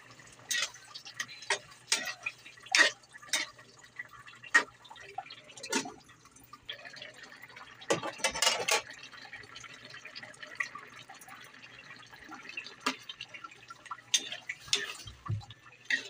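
Squash and sardine stew simmering in a metal pan, its thick sauce bubbling with irregular wet pops, a thicker run of them about halfway through.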